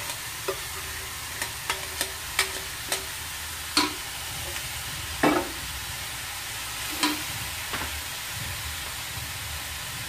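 Boiled jackfruit sizzling in a hot metal wok as it is stirred with a metal spatula, with about ten sharp clinks of the spatula against the pan. The loudest clink comes about five seconds in.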